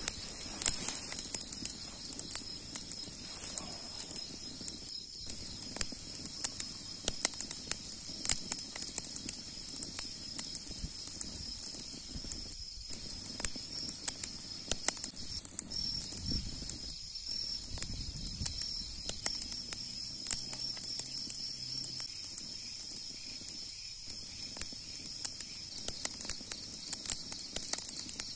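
Wood fire crackling, with irregular sharp pops and snaps, over a steady high-pitched hum.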